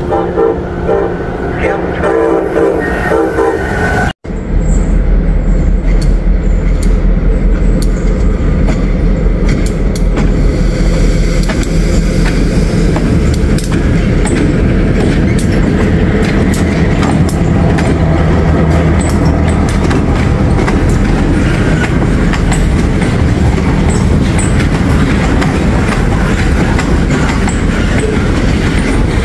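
A short run of sustained tones opens the sound. Then a diesel-electric freight train passes close by: the locomotive's diesel engine makes a steady low drone, and from about ten seconds in the freight cars' wheels click and clatter over the rail joints as the boxcars roll past.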